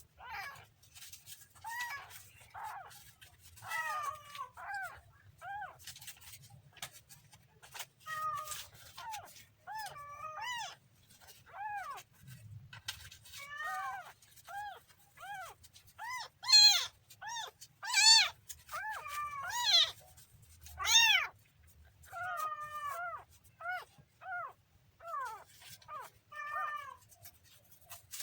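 A kitten mewing over and over in short, high calls that each rise and fall in pitch, about one or two a second. A few calls about two-thirds of the way through are much louder.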